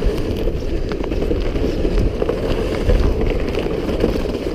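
A plastic sled scraping steadily over the lake ice as it is pulled along, with footsteps on the ice.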